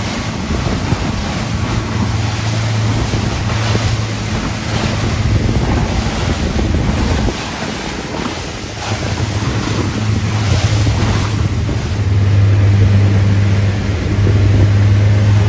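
Twin Yamaha 200 outboard motors running steadily at speed, a low drone that grows stronger in the last few seconds, with water rushing and splashing against the hull in rough chop and wind buffeting the microphone.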